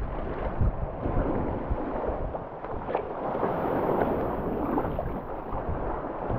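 Water splashing and rushing from a double-bladed paddle stroking through the sea as a kayak moves along, with wind rumbling on the microphone. The splashing swells for a couple of seconds midway.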